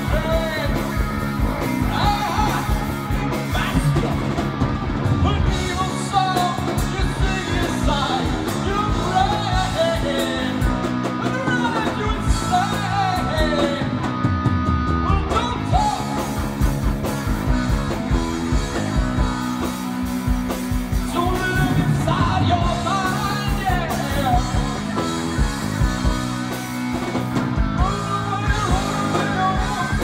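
Live heavy-metal band in an instrumental section: a distorted electric guitar solo with bending, sliding lead lines over bass guitar and drums.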